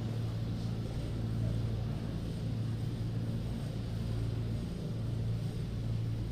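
Steady low hum with a faint even background noise, no voice.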